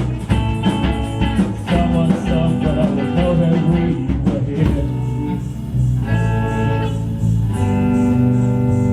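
Live band playing a guitar-led instrumental break of a rock song: a wavering lead line over bass and drums, giving way about halfway through to held, sustained chords.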